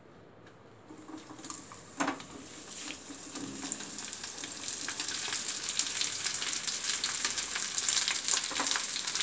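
Sun-dried amla (Indian gooseberry) slices dropped into smoking-hot mustard oil in a frying pan, sizzling and crackling. The sizzle starts about a second in and grows louder, with a single knock about two seconds in.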